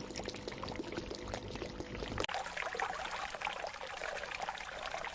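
Water running and trickling, with many small splashes. A little over two seconds in, it cuts abruptly to a brighter, hissier water sound.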